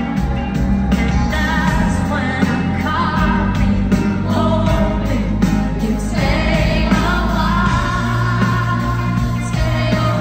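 Live pop band with a lead singer, played loud through a concert hall's sound system and heard from the audience: a steady beat with a sung melody over it.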